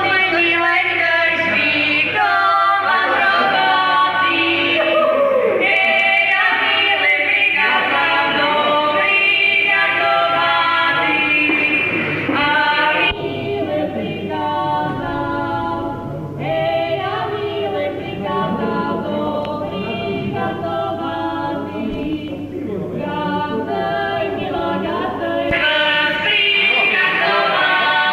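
A folk ensemble singing together as a group of voices. The singing drops in level about halfway through and comes back up near the end.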